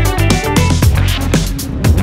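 Background dance music with a steady kick-drum beat and heavy bass.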